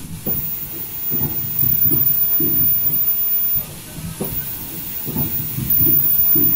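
Foldable N95 mask-making machine running: a thin, very high steady whine over an irregular low rumble, dropping off briefly near the start and again a little past the middle.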